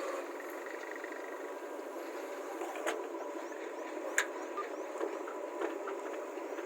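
Heavy diesel machinery running steadily at a loading site, with two short sharp knocks about three and four seconds in.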